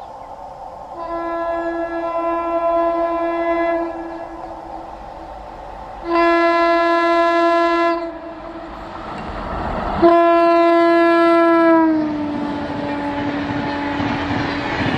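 Electric locomotive's horn sounded three times as the train approaches, each a steady single-pitched blast of two to three seconds. The third blast drops in pitch as the locomotive passes. Then the passenger coaches roll by with a rumbling, clattering rail noise.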